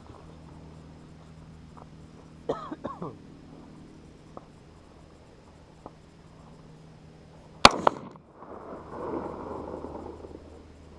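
Two gunshots fired in quick succession about three-quarters of the way in, each a sharp report, followed by a couple of seconds of lingering noise.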